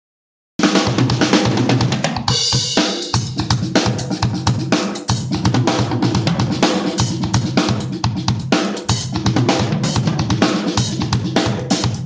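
PDP acoustic drum kit played in a busy, continuous groove of bass drum, snare and tom strokes with cymbal hits, starting about half a second in. A cymbal crash rings out about two seconds in.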